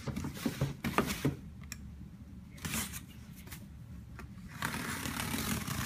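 Cardboard shipping box being handled and opened: scattered knocks and scrapes, then a steady rasping scrape from about two-thirds of the way in.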